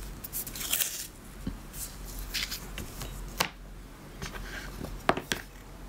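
Light rustles and scattered sharp clicks of masking tape being pressed onto leather and trimmed by hand at a workbench.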